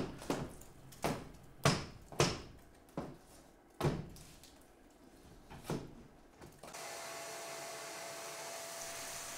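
Sharp knocks on timber, about eight at irregular intervals, as old nails are worked out of the wall framing. Then, about two-thirds in, the steady hiss of a vacuum cleaner running.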